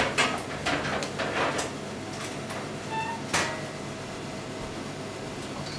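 Background room noise with scattered knocks and clatter, a brief high tone about three seconds in.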